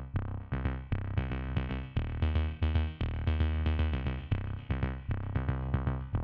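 Electronic outro music with a steady beat and a strong bass line.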